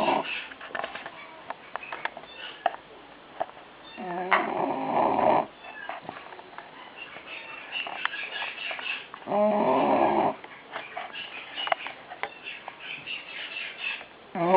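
A pet animal snoring: pitched snores, each lasting about a second, repeating about every five seconds.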